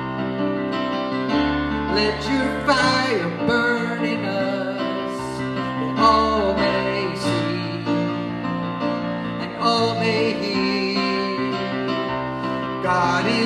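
Contemporary worship band music in an instrumental passage between sung lines: keyboard and band holding sustained chords over a moving bass line.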